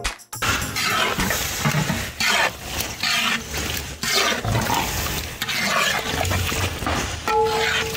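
Long ladle stirring thick egg curry gravy in a large aluminium pot: wet, slopping strokes about once a second.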